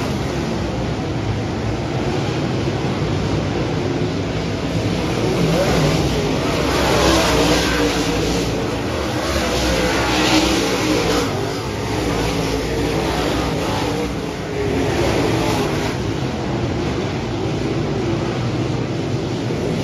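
A field of dirt-track modified race cars running at speed around the oval. Their V8 engines make a continuous dense noise that swells as cars pass close, loudest about seven and ten seconds in.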